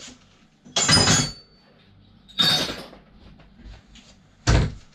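Aluminium scooter parts dropped into a scrap metal bin: three metallic clanks, the first with a brief ring.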